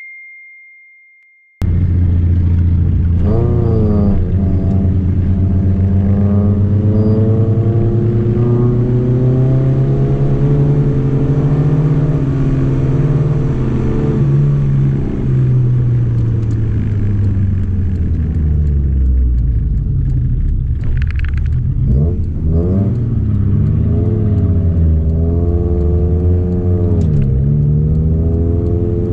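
Honda Civic Nouva's engine heard from inside the cabin, pulling hard up a steep climb. Its pitch rises and falls several times as the driver works down through the gears into first. It starts about a second and a half in, after a chime fades out.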